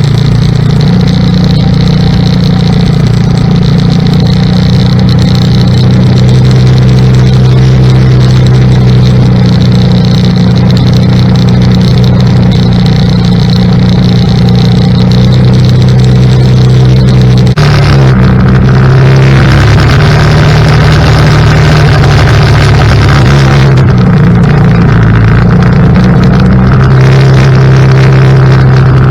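ATV engine running steadily under load, towing a homemade roller crimper. A little over halfway through, the engine note suddenly dips and wavers and a rushing noise comes up for several seconds, then it settles back to a steady pitch.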